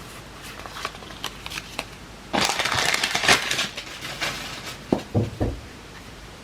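Foil wrapper of a Pokémon booster pack crinkling loudly for about a second, amid light clicks of cards being handled, then a few soft knocks about five seconds in.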